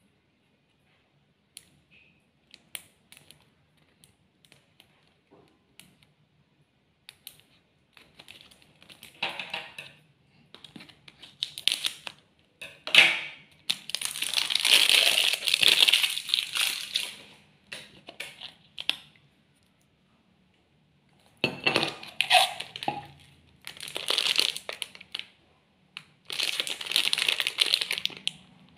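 Plastic snack packaging of a chocolate-dip biscuit cup crinkling and rustling as it is handled and unwrapped by hand. Faint ticks at first, then louder crinkling in irregular bursts from about eight seconds in, with short quiet gaps.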